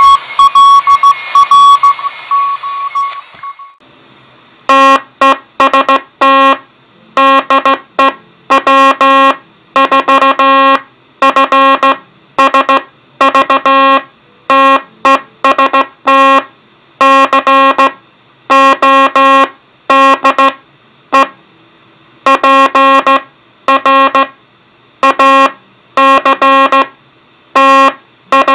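Morse code from a kit-built code practice oscillator: a buzzy, reedy tone keyed in dots and dashes. Before it, for the first few seconds, a Morse CW signal beeps at a higher pitch over hiss through the regenerative receiver, then cuts off.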